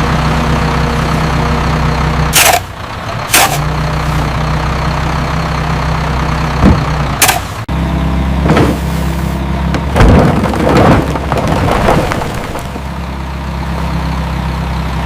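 Heavy machinery engine running steadily, with sharp clanks about two and a half, three and a half and seven seconds in, and a few duller knocks after.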